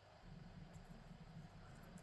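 Near silence: a few faint ticks of lock picking tools working inside a Tostem WN lock, over a low hum.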